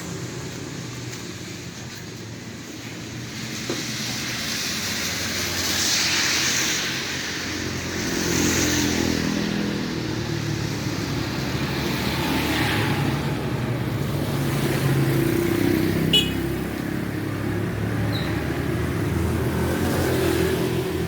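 Small engine fitted to a BMX bicycle running, its speed rising and falling.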